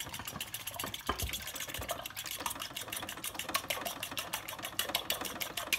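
Raw eggs being beaten with a fork, rapid even strokes clicking against the bowl.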